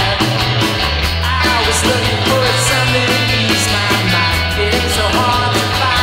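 Punk-leaning rock song played by a band: a steady drum beat under bass and electric guitar.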